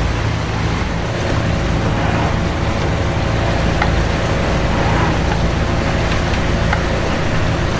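Heavy rain and wind on a boat at sea in a storm: a steady rushing noise with a low, steady hum underneath.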